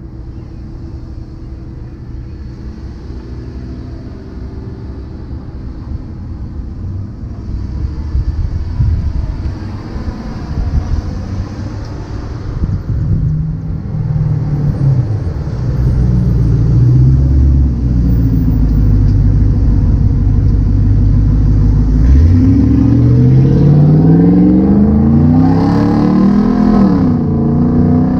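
Car traffic at an intersection, engines running as vehicles pull through. Over the last several seconds one car engine revs hard, its pitch climbing steeply as it accelerates, and this is the loudest sound.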